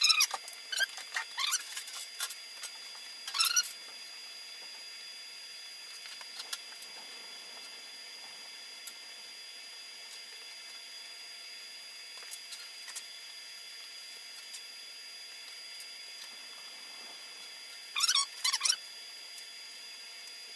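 Baby chicks peeping in short bursts: right at the start, again around three seconds in, and near the end. Between the bursts, light clicks and taps of small metal parts being handled.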